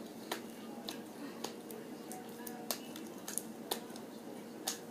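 Homemade slime being squeezed and played with by hand, giving irregular sharp clicks and pops, about seven in five seconds.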